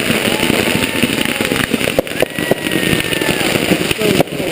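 Fireworks going off: a dense run of crackling and sharp pops, with several whistling tones that slowly glide in pitch.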